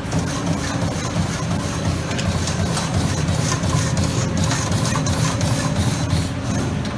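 Amada Vipros 358 CNC turret punch press running: a rapid stream of punching strokes, several a second, over the steady hum of the machine's hydraulic unit.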